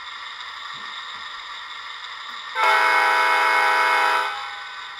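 MTH Protosound 2 locomotive sound system playing a train horn through its onboard speaker, one loud blast of a little under two seconds about two and a half seconds in, over a steady droning engine sound from the same speaker.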